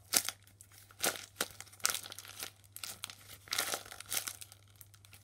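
A taped paper squishy stuffed with plastic-bag scraps being squeezed by hand: crinkling and crumpling in short, irregular bursts, loudest just after the start.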